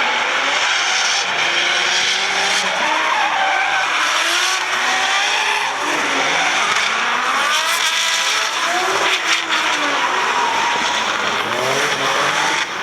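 Drift cars sliding on a circuit: engines revving up and down at high revs while the tyres squeal.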